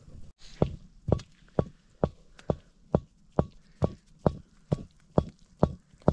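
Wooden paddle knocking against a cast aluminium pot as porridge is stirred over a wood fire, with flour being sprinkled in. The knocks are steady and rhythmic, about two a second, each with a short metallic ring.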